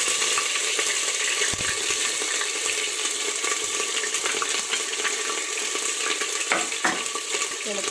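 Crushed ginger sizzling in hot oil with whole spices in a pressure cooker. A spoon stirs and taps the metal pot now and then, with a few sharper knocks.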